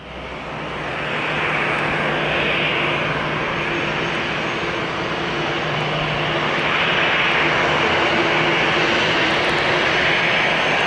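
Airbus A320's CFM56 jet engines running at low taxi thrust as the airliner turns to line up on the runway: a steady rushing hum with a faint low drone underneath. It fades in over the first second and grows a little louder in the second half.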